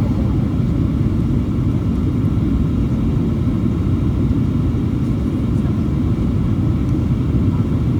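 Boeing 737-800 cabin noise in flight: a steady low rumble of engines and airflow, with faint steady tones above it.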